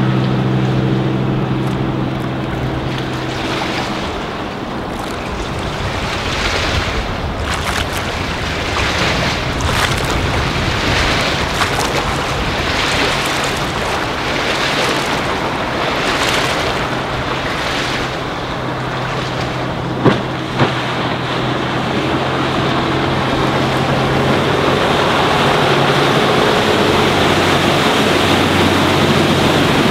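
Doral Monticello sports cruiser's MerCruiser six-cylinder diesel running at speed on the water: its hum fades as the boat draws away in the first few seconds and swells again in the last few seconds as it passes close. In between, hull wash and wind gusting on the microphone, with two short clicks about 20 seconds in.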